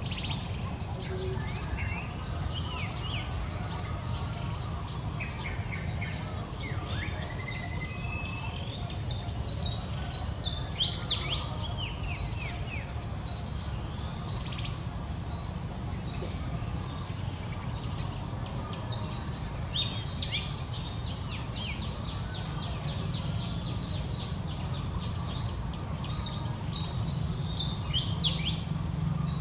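Small birds chirping in the background: many short, high, falling chirps that come thick and fast near the end, over a steady low rumble.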